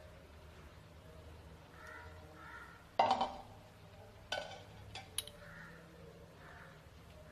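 Metal pan and spoon clinking against a glass bowl while custard is poured over cut fruit and stirred in. One sharp clink about three seconds in, then a lighter clink and a couple of small ticks.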